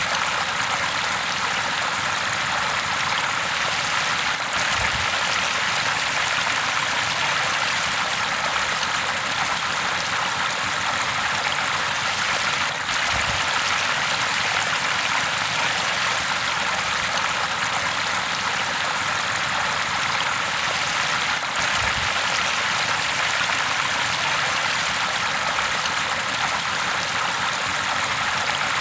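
River water flowing steadily over rocks, a continuous even rush of running water with no pauses.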